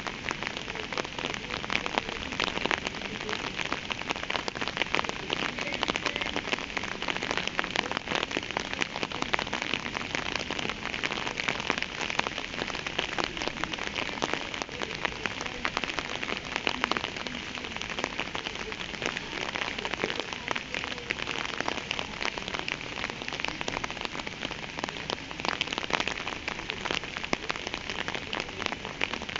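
Steady rain falling on a hard surface: a dense, even hiss of many drops pattering, with no let-up.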